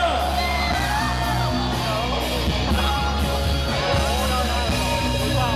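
Live rock band playing the song through the concert sound system, with the crowd yelling and cheering over it.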